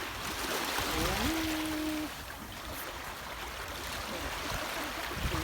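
Steady noise of moving water, with a faint, short, steady tone about a second and a half in.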